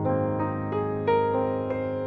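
Slow, gentle piano music: a melody of single struck notes, about three a second, each ringing out over held low notes.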